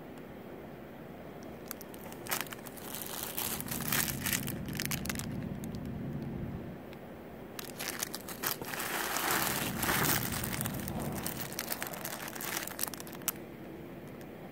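Small clear plastic bags of packaged jewelry crinkling and crackling as a hand rummages through a box of them, in two bouts: one starting about two seconds in and a longer one from about eight seconds to near the end.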